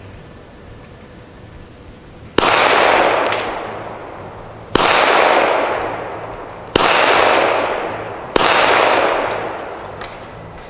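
Four unsuppressed 9mm pistol shots from a Glock 17-pattern Lone Wolf pistol, about two seconds apart and starting about two seconds in, each a sharp crack trailing off in a long echo.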